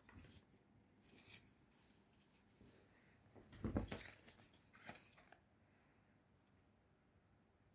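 Faint rustling of a feather duster swishing over bedding, then a soft thump with fabric rustle about three and a half seconds in as a cat pounces onto the quilt.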